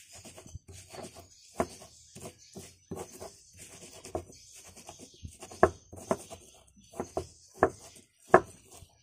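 A pestle crushing bird's-eye chillies and salt in a cobek mortar: scraping strokes and knocks, two or three a second, with several sharper knocks in the second half.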